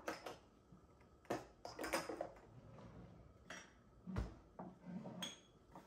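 A series of light knocks and clinks, about seven in all, as small spice jars, lids and dishes are handled and set down on a wooden counter; a couple near the end ring briefly.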